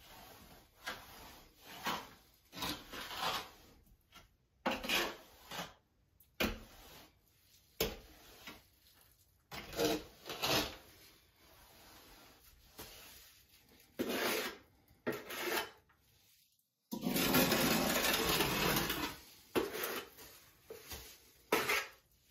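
Trowel scraping and spreading white glass-tile thinset mortar across a wall in short strokes, roughly one a second. Near the end comes a louder, longer scrape of about two seconds.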